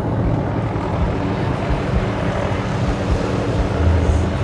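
Helicopter running close by: a steady low rumble of turbine and rotor, swelling briefly near the end.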